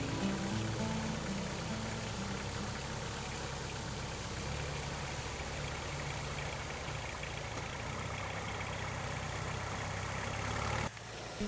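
Tractor engine running steadily at a low, even note that shifts slightly about four seconds in, then cuts off abruptly near the end.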